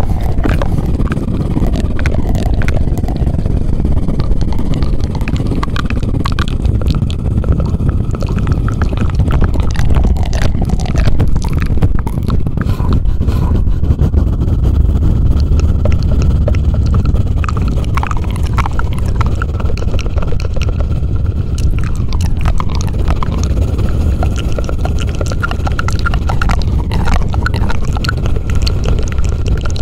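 ASMR 'helicopter' trigger: a close microphone rubbed and swirled by hand, giving a loud, continuous low rumbling whoosh with scratchy scraping over it.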